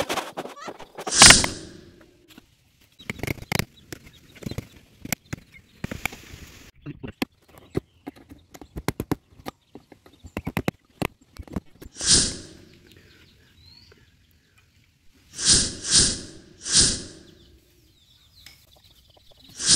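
Chisel work on wood: a wooden mallet drives a metal chisel into a wooden block with a series of sharp knocks and small taps. Several louder half-second sounds come in among them: one early, one around the middle, three close together later, and one at the end.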